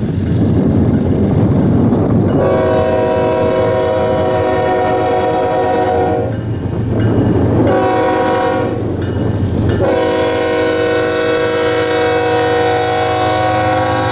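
Union Pacific diesel freight locomotive's multi-tone air horn sounding the grade-crossing signal as the train approaches: a long blast, a short one, then a final long blast held as the locomotives reach the crossing. The rumble of the approaching train runs underneath.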